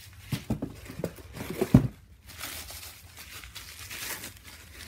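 Plastic wrap and packing paper crinkling and rustling as hands unwrap a cast aluminum handwheel, with a few short knocks in the first two seconds, the loudest about two seconds in.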